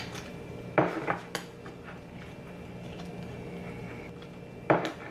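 A spoon knocking and scraping against a bowl a few times while stirring mayonnaise into ice cream, with a couple of short clinks about a second in and another near the end, over a steady low hum.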